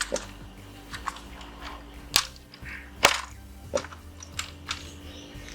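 A few short, sharp clicks and taps at irregular moments, the loudest about three seconds in, over faint background music.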